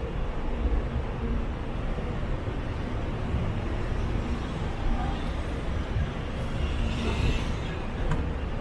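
Steady low rumble of road traffic, with a brief click near the end.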